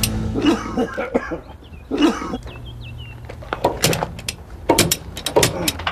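Sharp metal clicks and clacks of a curtain-sided trailer's side-curtain strap buckles being unhooked one after another, a couple about a second in and a quicker run of them in the second half.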